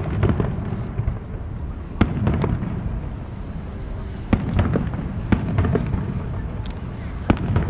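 Aerial firework shells bursting: a series of sharp booms a second or two apart, about five in all, with a low rumble continuing between them.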